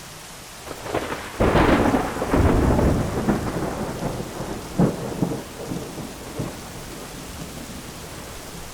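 Thunderstorm: steady rain with a thunderclap about a second and a half in that rumbles on for a couple of seconds, then a shorter, sharper crack near the middle.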